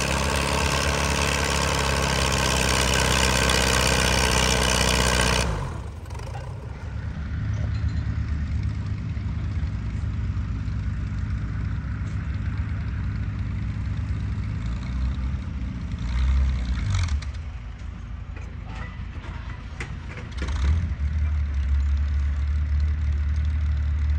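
An antique Farmall tractor's engine running steadily at low speed. After an abrupt cut about five seconds in, a larger tractor's engine runs further off, swelling louder briefly around the middle and again for the last few seconds.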